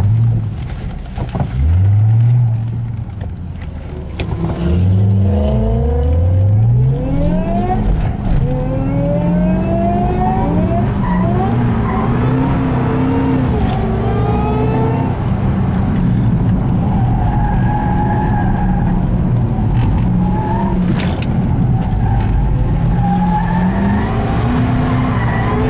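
Ford Shelby GT500's supercharged V8 heard from inside the cabin on track. The revs blip and drop in the first few seconds, then climb in several rising sweeps as the car accelerates through the gears. The engine then runs fairly steadily at speed, its note wavering a little.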